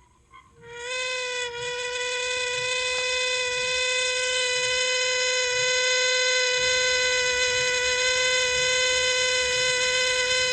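Sharp air-purifier brushless DC fan motor (MOTA023KK, 140 V 38 W) running at high speed with a loud, steady, high-pitched squeal from its ball bearing. The squeal starts about half a second in, slides up slightly in pitch and then holds. It sounds like a plain metal bearing run out of oil: the bearing is deteriorated or worn.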